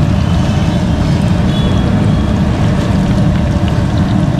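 Capsicum bajjis deep-frying in a large wok of bubbling oil, a steady sizzle under a loud, steady low rumble.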